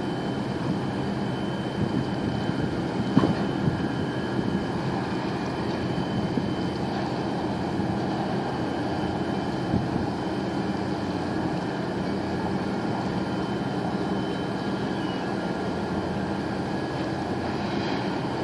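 Steady drone of a boat's engine running, heard from on board, with a few steady tones over a constant hum. A short sharp knock about three seconds in.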